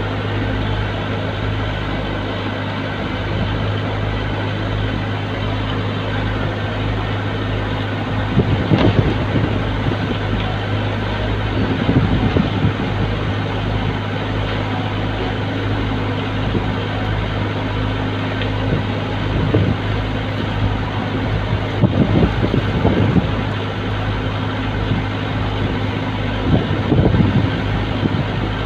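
Heavy truck's diesel engine idling steadily, a constant low hum. A few rough gusts of wind on the microphone are heard over it.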